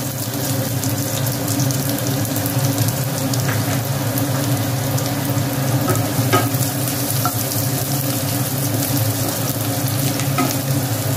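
Chopped garlic and ginger sizzling as they fry in hot oil, stirred with a wooden spatula, with a few light clicks as it knocks the pan.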